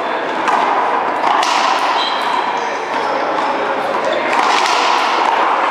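One-wall racquetball rally: the ball hitting racquets and the wall in several sharp hits, with short sneaker squeaks on the court floor.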